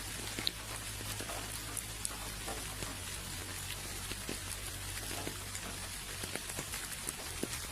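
Steady rainfall, an even hiss with scattered individual drops ticking on nearby surfaces, over a faint low hum.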